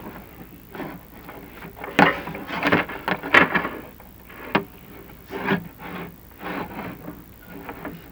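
Irregular scraping and rubbing as a chimney inspection camera is lowered down the flue, its head and cable knocking against the flue walls. The loudest scrapes come about two to three and a half seconds in, with softer ones after.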